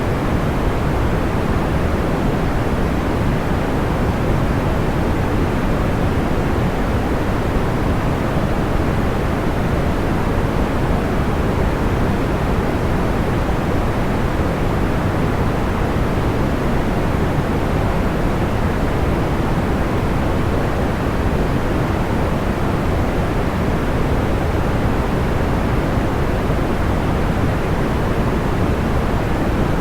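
Steady sleep-aid noise, a soft even hiss weighted toward the low end, with no fire crackles standing out.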